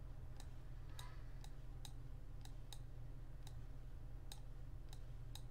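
A computer mouse clicking about ten times at an uneven pace while the view is dragged around, over a steady low hum.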